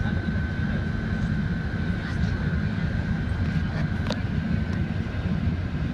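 Steady in-cabin noise of a jet airliner descending to land: a low rumble of engines and airflow with a thin, steady whine over it. A brief click about four seconds in.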